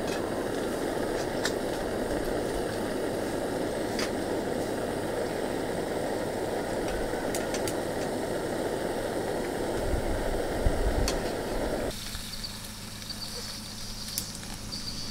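Bialetti moka pot brewing, with a steady rushing, bubbling noise as the coffee comes up through the spout. There is a low thump about ten seconds in, and the noise stops abruptly about twelve seconds in.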